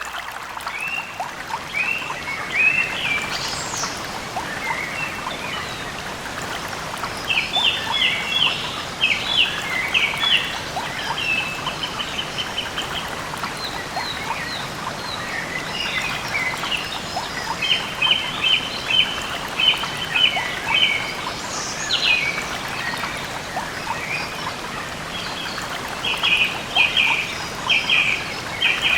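Birds chirping in quick runs of short, repeated calls over a steady background hiss.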